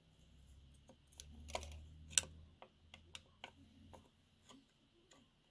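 Consew Premier 1206RB-1 sewing machine turned forward by hand while its lower stitch (bobbin hook) assembly is held still with a rod, to retard the hook timing. A low rumble runs through the first four seconds, with a string of light metallic clicks and ticks, the loudest a little past two seconds in.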